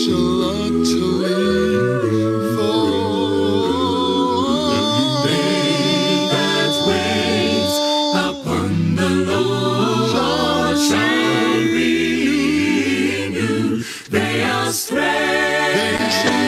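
Unaccompanied voices singing together in harmony, a cappella, holding sustained notes with short breaks between phrases.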